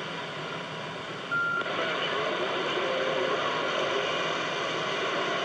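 CB radio receiver hissing with static as a weak long-distance skip signal fades, a distant voice barely showing through the noise, and a short beep about a second and a half in.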